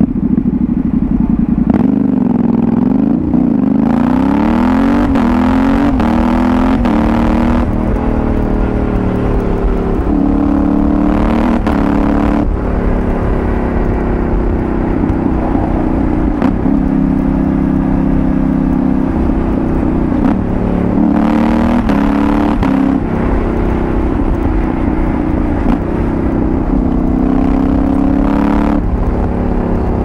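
Yamaha Tenere 700's parallel-twin engine through a Dominator GP1 aftermarket exhaust, heard on board while riding. It revs up and shifts up several times in the first half, each shift a brief break and drop in pitch consistent with clutchless quickshifter upshifts. It then runs at a steady cruise and pulls up through the revs again twice near the end.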